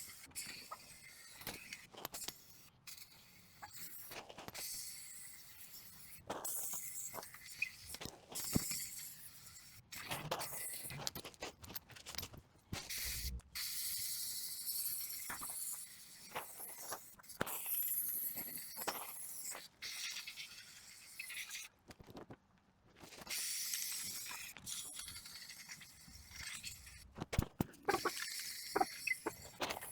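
Paint being sprayed onto the wood in repeated short bursts of hissing with brief pauses between them, with a few clicks and light knocks.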